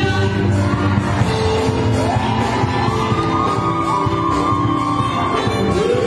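Live gospel music: a band with keyboard and electric guitar playing under women singing into microphones, with shouted, rising vocal glides about two seconds in and again near the end.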